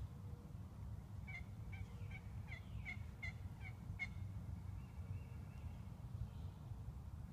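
Wild turkey calling: a run of about eight short, clipped notes, about three a second, over a steady low rumble.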